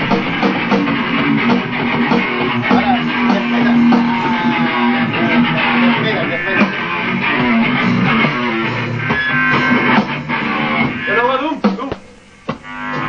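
Stratocaster-style electric guitar playing loud rock, with sliding notes near the end, then the sound drops out briefly before picking up again.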